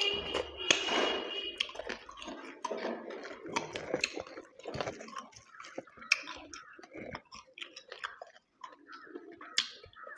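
Close-miked eating sounds from a meal of mutton curry: irregular chewing, wet smacking and small clicks.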